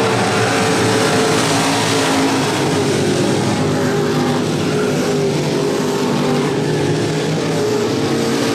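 Several dirt-track street stock race cars running at racing speed around the oval, their engine notes overlapping in a steady loud drone whose pitches drift up and down as the cars go through the turns.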